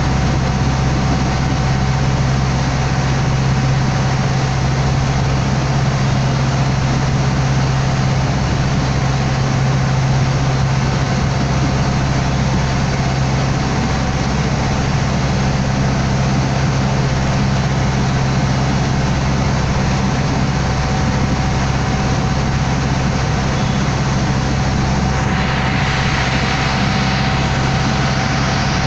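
Water taxi's engine running steadily under way, a deep, even hum with a faint steady whine above it. Near the end a rushing hiss of water along the hull rises over it.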